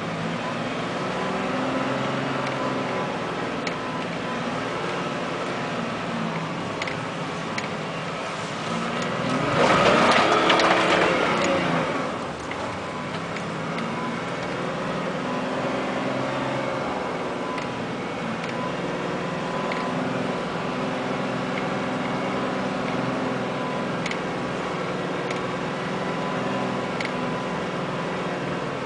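Nissan Patrol GR's 2.8-litre straight-six turbodiesel running under way, heard from inside the cab, its pitch rising and falling with the throttle. About ten seconds in a louder rush of noise builds and dies away over roughly two seconds.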